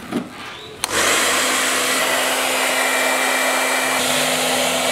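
Handheld hair dryer switched on just under a second in, then blowing steadily: a loud rush of air over a constant low hum.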